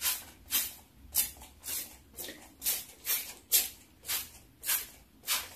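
Trigger spray bottle squeezed over and over, about two sprays a second, each a short hiss of watered-down white chalk paint misting onto wood furniture for a whitewash effect.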